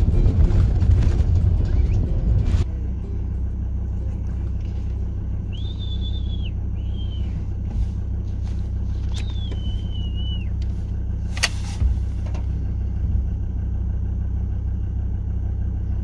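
Fox whistle blown in three high, squealing calls, the last one falling away, mimicking a rabbit in distress to lure foxes. Under it runs a vehicle's steady engine rumble, louder for the first few seconds, and a single sharp click comes a little after halfway.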